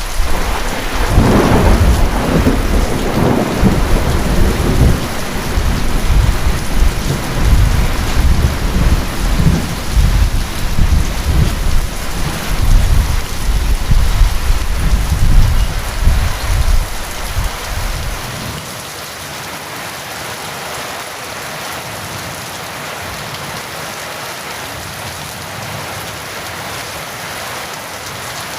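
A long peal of thunder rumbling over steady heavy rain, rolling for about eighteen seconds and then dying away, leaving only the even hiss of rain.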